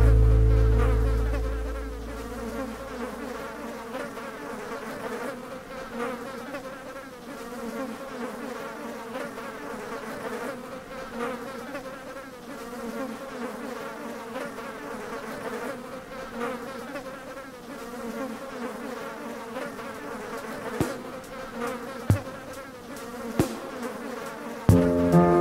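Steady buzzing of a swarm of flying insects, a low hum with a fluttering edge. Music fades out over the first two seconds, and a few sharp clicks come near the end.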